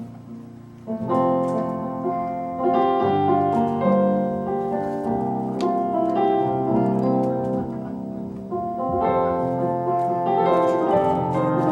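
Piano playing a hymn in full, sustained chords, coming in loud about a second in after a quiet opening.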